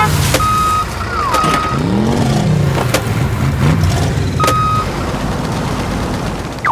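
Cartoon-style vehicle sound effects: a steady low engine hum, with three short high beeps and a few tones that slide up and down in pitch.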